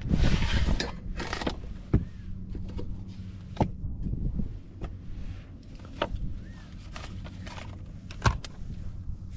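Wooden drawer sliding out from under a car's bed platform with a scrape in the first second, then scattered knocks and clinks as camping gear, a metal mug and a gas canister among it, is handled inside the drawer.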